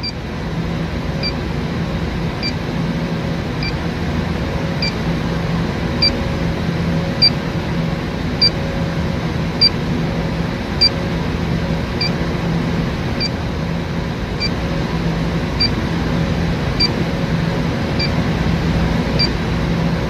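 Electronic refrigerant leak detector (Testo 316-3) beeping at a steady slow rate, about once every 1.2 seconds, while its probe is held over a capillary-line leak repair. The rate never speeds up, so no leak is detected. A steady machine hum comes from the running refrigeration unit.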